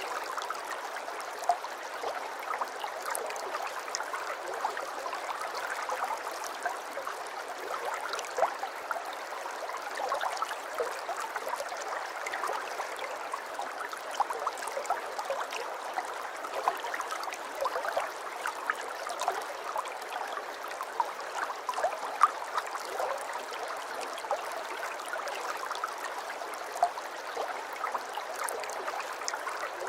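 Aquarium water trickling steadily, with many small drop-like plinks scattered through it.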